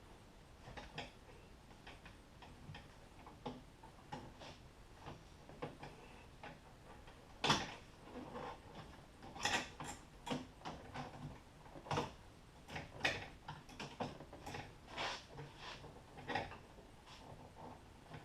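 Irregular clicks, taps and knocks of a car's plastic interior door panel and trim piece being handled and fitted, with one sharp loudest knock about seven and a half seconds in.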